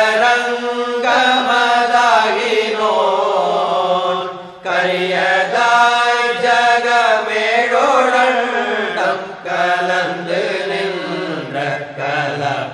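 A voice chanting a Tamil devotional hymn in a slow, melodic line over a steady low drone.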